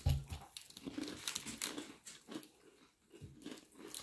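Crunchy pineapple-cream sandwich biscuit being bitten and chewed, with irregular crisp crunches.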